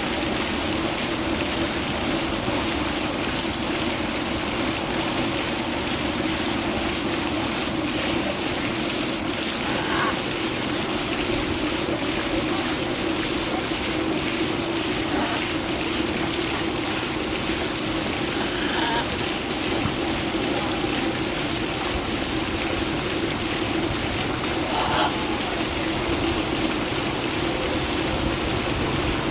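Steady rushing noise with four short, faint parrot calls over it.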